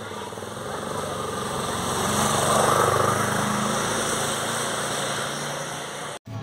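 A motor vehicle's engine passing by, growing louder for about two and a half seconds and then slowly fading, with a rough rattling edge. It cuts off suddenly near the end.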